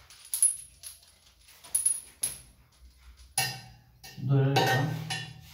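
Sharp metallic clinks and clicks as a chrome basin mixer and its braided flexible hose are handled against a ceramic wash basin. From about three and a half seconds in, a louder pitched sound like a person's voice runs for over a second.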